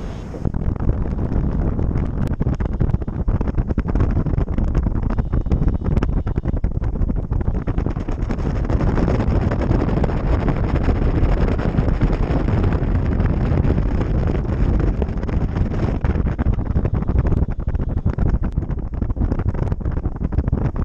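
Wind noise: the airflow of gliding flight buffeting a paraglider pilot's camera microphone, a steady, loud rumbling rush.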